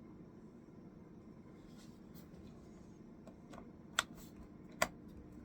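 Small clicks and taps from handling computer parts: faint ticking, then two sharp clicks less than a second apart near the end, over a low steady hum.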